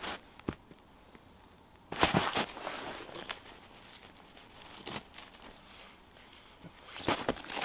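Boots crunching in snow: a few steps about two seconds in and again near the end, with scattered light clicks and rustles between as a tarp corner is handled.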